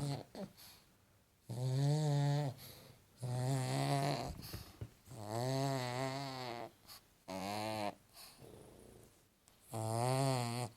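A pug snoring in its sleep: about five snores, each lasting about a second, with short pauses between them. Each snore has a steady buzzing pitch.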